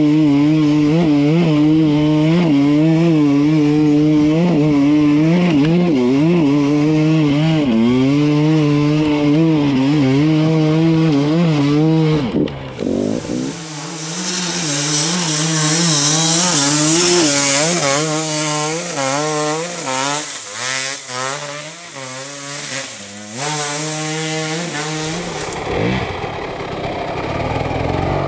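Enduro dirt bike engine running and revving up and down as it is ridden off-road. About halfway through the sound changes abruptly to uneven, fluctuating revving with a hiss on top.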